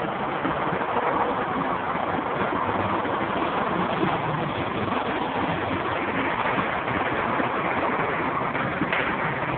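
Steady city street traffic noise, cars running along the road.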